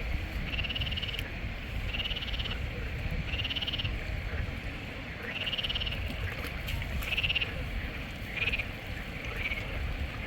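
Frogs calling in a rice paddy: a series of short, fairly high-pitched croaks, each about half a second long, repeating roughly once a second over a low background rumble.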